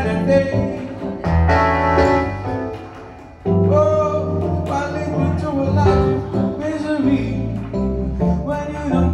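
Live band music with keyboard and a bass line. It fades about two and a half seconds in and comes back in strongly about a second later.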